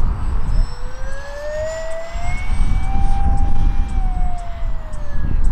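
The 50 mm electric ducted fan of a 3D-printed Avro Vulcan RC model jet, on 4S power, whining in flight. The whine rises in pitch for about three seconds, then falls away near the end, over a low rumble.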